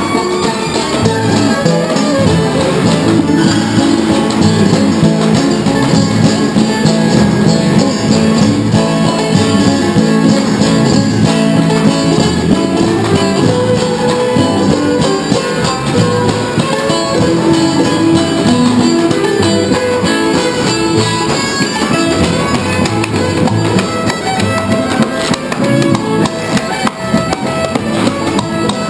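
Live acoustic string band playing an instrumental tune: fiddle, banjo and upright bass with light drum and cymbal percussion, going steadily throughout.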